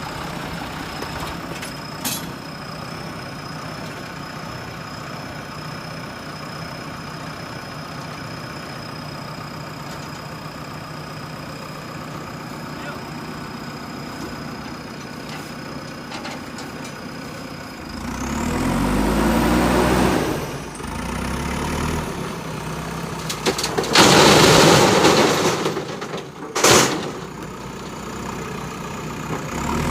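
JCB backhoe loader's diesel engine idling steadily, then revving up about two-thirds of the way through. Near the end there is a loud burst of noise as the machine works, and a sharp knock.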